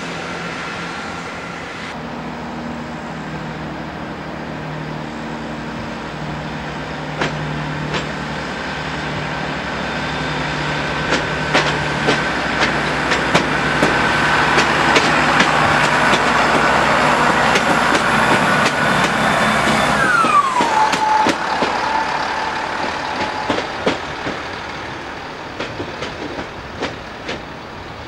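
A train approaching and passing: its sound builds, a high tone drops sharply in pitch about twenty seconds in as it goes by, and wheels click over rail joints as the train runs past and fades away.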